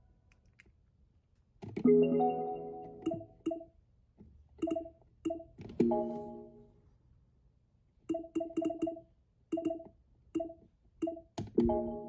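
Nintendo Alarmo alarm clock sounding short electronic musical tones: a chord about two seconds in, then a run of brief pitched blips, each with a sharp click, coming thick and fast near the end.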